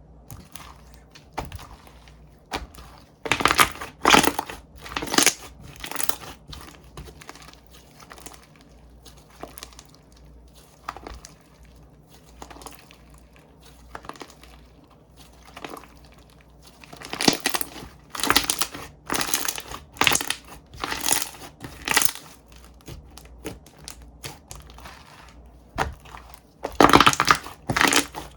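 Slime being squished and stretched by hand, giving short, crackly bursts of sound: a cluster a few seconds in, then about one a second around the middle, and another near the end, with quieter handling between.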